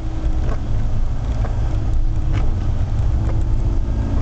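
Rover Metro GTa's 1275 cc A-series four-cylinder engine pulling at a steady pitch through a corner, heard inside the cabin over tyre and road noise on a wet track, with a few faint clicks.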